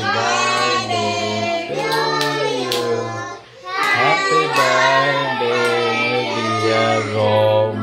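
Children singing a birthday song over music, with hand-clapping, as the cake is cut; the singing breaks briefly about three and a half seconds in.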